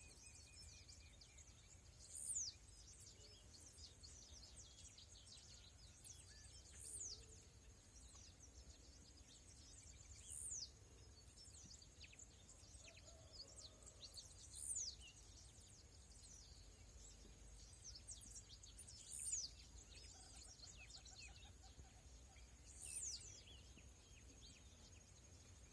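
A bird repeats a high, sharply falling whistled call about every four seconds, six times, over faint scattered chirps of other birds and a steady, thin, high-pitched whine.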